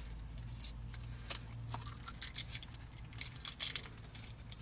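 Small sauce packet being crinkled and torn open with the fingers: a run of short, irregular crackles and clicks.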